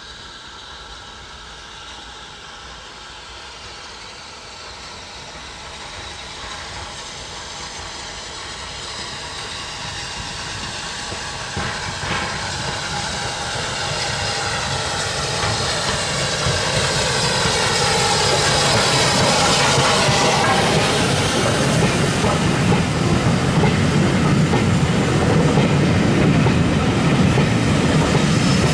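Steam-hauled passenger train approaching and passing, growing steadily louder. As the locomotive goes by, about two-thirds of the way in, its sound falls in pitch. Then the carriages roll past with a clickety-clack of wheels over the rail joints.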